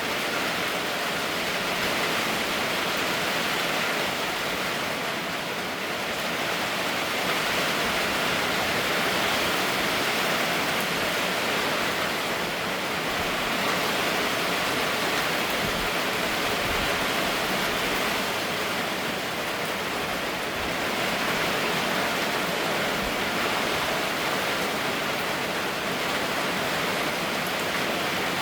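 Rain falling steadily: a dense, even hiss that swells and eases slightly every few seconds.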